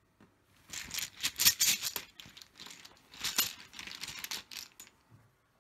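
Scrabble tiles clattering against one another inside their cloth drawing bag as they are jostled, in two spells of rapid clicking.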